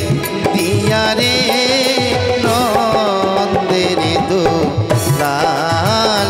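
Live Baul folk song: a man's voice singing a wavering, ornamented melody into a microphone over hand-drum accompaniment.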